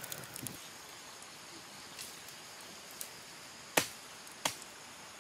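Two sharp wooden cracks about two-thirds of a second apart near the end, the first louder, as a tree branch is struck or broken. A faint forest background with a few small ticks lies beneath.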